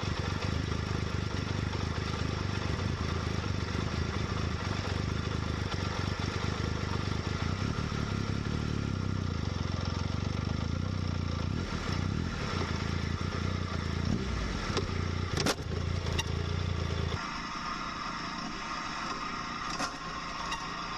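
Motorcycle engine running steadily at idle, then the deep part of its sound cuts out near the end, as if switched off, with a couple of sharp clicks just before.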